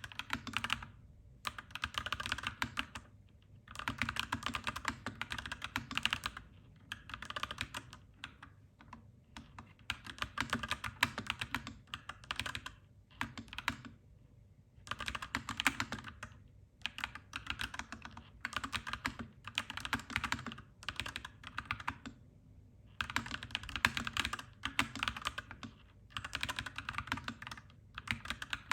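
Fast typing on a clacky mechanical keyboard, dense runs of key clacks broken by brief pauses every few seconds.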